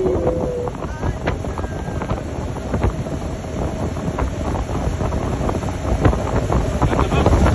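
Wind buffeting the microphone on a fast-moving motorboat, over the steady hum of its outboard motor and the rush of the wake.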